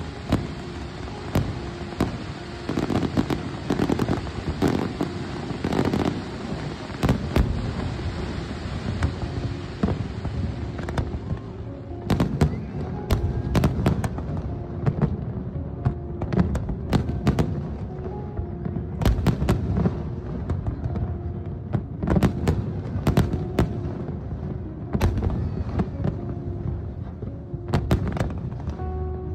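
Fireworks display: aerial shells bursting in a rapid run of sharp bangs and crackles, over a steady hiss that stops about eleven seconds in.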